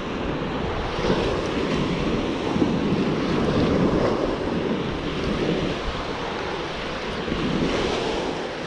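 Ocean surf washing onto the beach, swelling and easing, with wind noise on the microphone.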